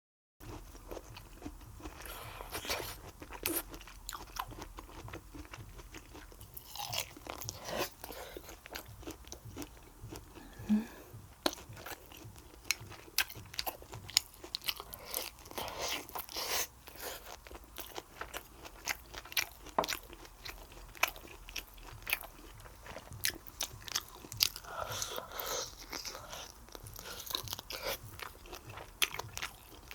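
A person eating close to the microphone: chewing, with crisp crunches and sharp wet mouth clicks coming irregularly throughout.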